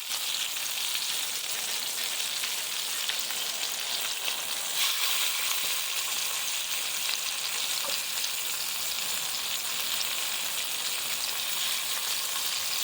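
Blackfin tuna medallions frying in hot bacon grease in a pan: a steady sizzle with fine crackling throughout.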